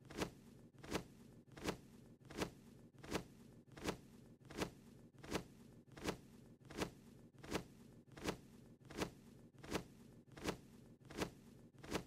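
Cartoon sound effect of a small bird's wings flapping: a short fluttering swish repeated at an even pace, about three flaps every two seconds, over a faint low hum.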